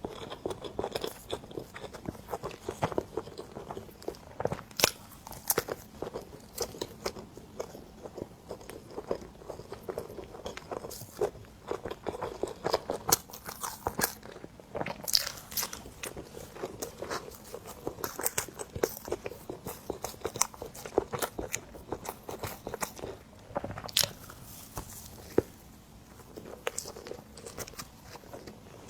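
Close-miked eating: someone biting into and chewing cream bread, with many irregular small clicks and smacks from the mouth.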